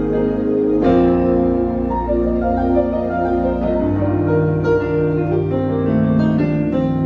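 Keyboard playing slow, sustained piano-like chords over a held low bass, changing chord about a second in, again near four seconds, and once more near the end.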